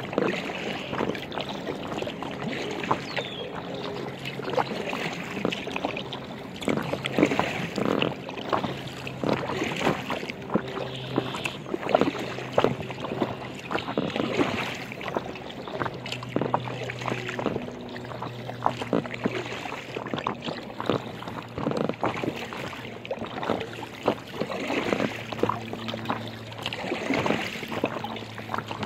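Paddle strokes splashing and water lapping against the hull of an Aqua Marina inflatable kayak as it moves along, in a repeated uneven rhythm of small splashes, with a faint steady low hum underneath.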